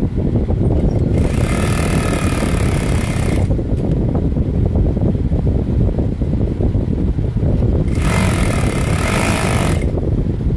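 Industrial lockstitch sewing machine stitching a striped fabric strip in two bursts of about two seconds each, one about a second in and one near the end, over a steady low rumble.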